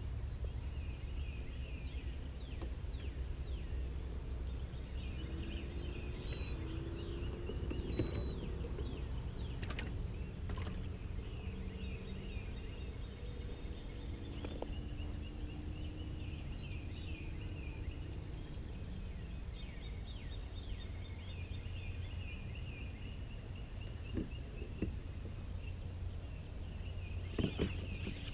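Small birds chirping and singing along the shore, a steady run of quick high notes over a low, even background rumble. A few light knocks near the end.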